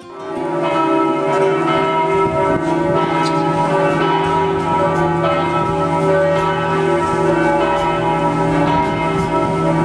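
Several church bells ringing together, a dense, continuous mix of overlapping tones that comes in within the first second.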